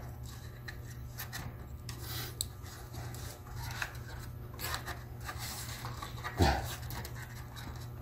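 Lenovo IdeaPad 100 laptop keyboard being handled and pressed down into its deck: scattered small plastic clicks and rubbing of the keys and keyboard against the palm rest, over a low steady hum. A single louder, low sound stands out about six and a half seconds in.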